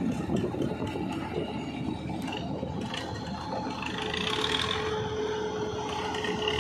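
Tractor-towed mobile brick-making machine working as it travels, its mechanism clattering and ratcheting in quick repeated clicks over the tractor's running engine. A steady whine joins about four seconds in.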